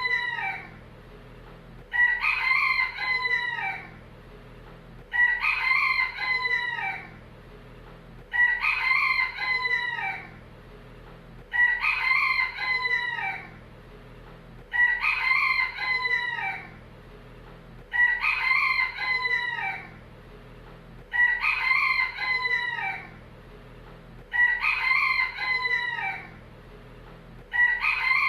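Rooster crowing cock-a-doodle-doo over and over, one crow about every three seconds, each crow alike in shape and length.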